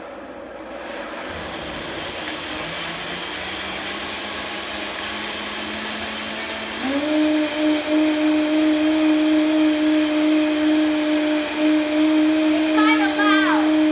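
Countertop blender motor starting on low, its hum slowly climbing in pitch, then switched up to a higher speed about seven seconds in, louder and higher-pitched as it purées a hot tomato and vegetable soup base.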